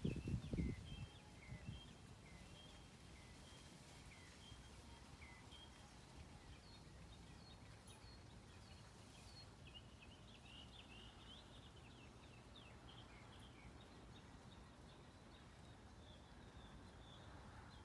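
Faint morning birdsong: short high chirps repeated about once a second, thickening into a quick flurry of chirps midway, over a low steady outdoor hum. A low thump sounds in the first second.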